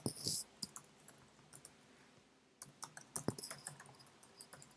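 Keystrokes on a computer keyboard: a quick burst of typing at the start, a few scattered keys, then a steadier run of typing from about two and a half seconds in.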